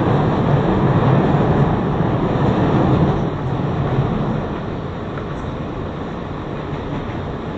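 Inside an R160 Siemens subway car running between stations: a steady rumble of wheels on rail and running gear. It is louder for about the first four seconds, then eases a little.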